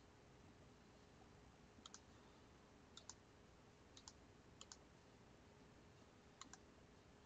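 Computer mouse button clicking faintly five times, each a quick double tick of press and release, over quiet room tone with a faint steady hum.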